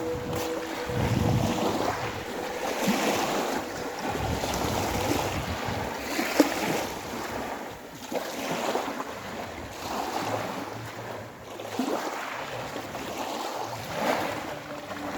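Sea waves washing in, swelling and fading every couple of seconds, with wind on the microphone. One brief sharp click about six seconds in.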